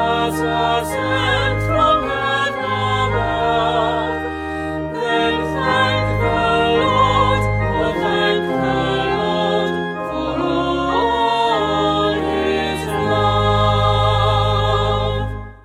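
A choir singing with vibrato over sustained low bass notes, fading out quickly at the end.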